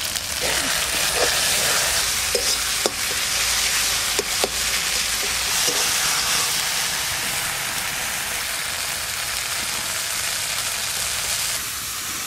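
Ground spice paste (masala) with tomatoes sizzling in oil in a kadai as it is fried down, while a flat metal spatula stirs it and scrapes the pan several times in the first few seconds.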